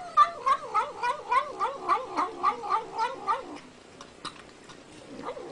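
A cat yowling in a fast warbling series, about three or four wavering cries a second, which stops about three and a half seconds in; a few faint clicks follow.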